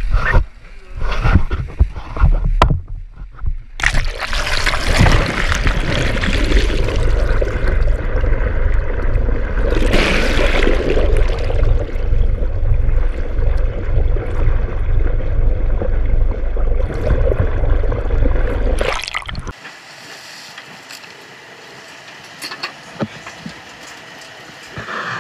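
Seawater rushing and gurgling over an action camera dunked over the side of a moving fishing boat: choppy splashes for the first few seconds, then a dense, steady rush of water that cuts off suddenly a few seconds before the end. After it comes quieter on-deck noise with a few sharp knocks.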